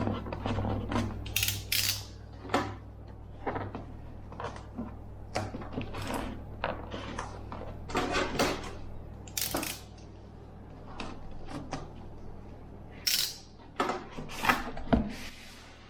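Parcel packaging being opened and handled: irregular rustling, crinkling and scraping of paper and cardboard, with scattered taps and clicks.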